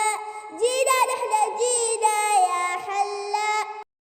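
Children's song: a child's voice sings with backing music, then stops abruptly into silence near the end.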